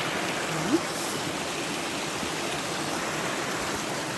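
Polikarya waterfall, about 70 m high, pouring: a steady rush of falling water. A short rising squeak sounds under a second in.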